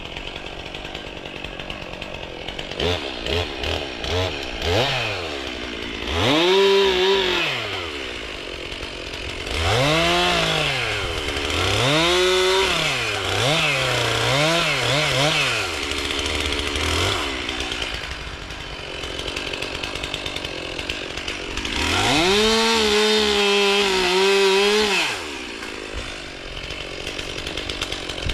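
Chainsaw cutting wood: it sits at idle between cuts and revs up repeatedly. There are a few short blips, then one rev about six seconds in, several more between about ten and sixteen seconds, and a longer full-throttle cut near twenty-two to twenty-five seconds.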